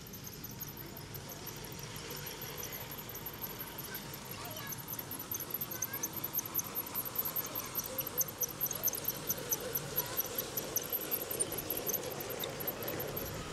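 G-scale garden railway train rolling past on outdoor track, its wheels giving a fast, even clicking over the rail joints that is loudest between about five and eleven seconds in, as the wagons pass close. A faint high ticking runs underneath throughout.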